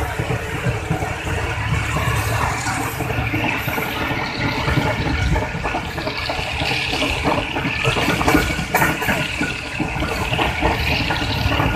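Passenger train pulling out of the station, its wheels clattering over the rails with a heavy rumble, heard from an open carriage window with wind rushing over the microphone.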